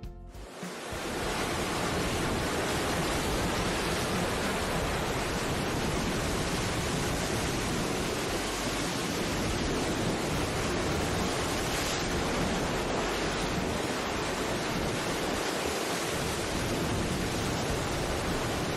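Steady rushing water, a constant even roar without breaks, fading in over the first second.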